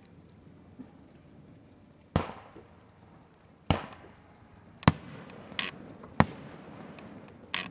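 Aerial fireworks shells bursting: six sharp booms at uneven intervals of about a second, each trailing off. The loudest comes about halfway through.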